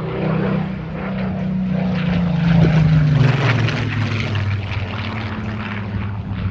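Supermarine Spitfire Mk XIV's Rolls-Royce Griffon V12 engine in a low, fast flypast, growing louder and then dropping sharply in pitch about halfway through as the fighter passes and moves away.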